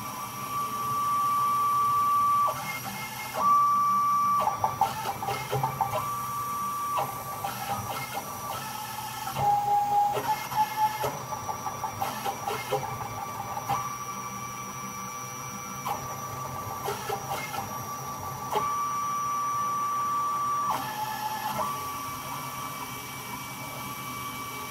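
Stepper motors of a small homemade CNC router driving its axes on the new lead screws during a test run at 1800 mm/min. They give a whine that holds for a second or a few at a time and shifts pitch as each move starts and ends, with stretches of quick ticking in between.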